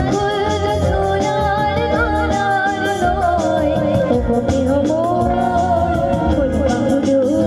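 A girl singing a Bengali song live into a microphone, with a band of electric guitars and keyboard accompanying her to a steady beat.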